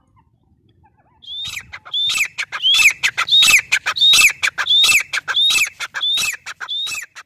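Grey francolin (teetar) calling. After about a second of quiet, a loud two-part phrase repeats about one and a half times a second: a high rising note, then a lower falling one.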